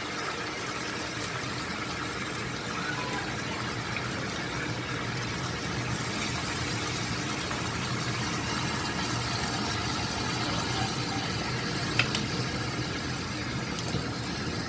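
Steady hiss over a low hum from stovetop cooking, as chicken adobo cooks in soy sauce, with one sharp click about twelve seconds in.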